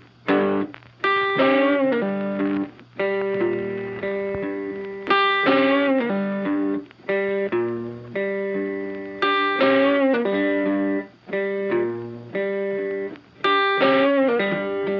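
Background music: a plucked guitar melody with some notes bending in pitch, its phrase repeating about every four seconds.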